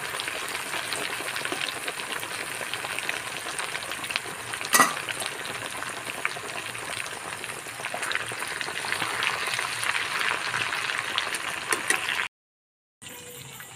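A whole marinated chicken deep-frying in hot refined oil in an aluminium kadai: steady sizzling and crackling, with one louder crack about five seconds in. The sound drops out briefly near the end and comes back quieter.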